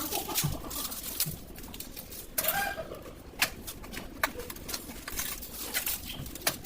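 Scattered sharp clicks and knocks, with a few short low bird calls.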